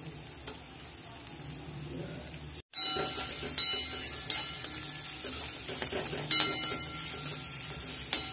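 Chopped onion, garlic and green chilli sizzling in hot oil in a metal kadai while a spatula stirs and scrapes against the pan. The sizzle is quiet at first, then after a brief break about two and a half seconds in it comes back louder with sharp scrapes of the spatula.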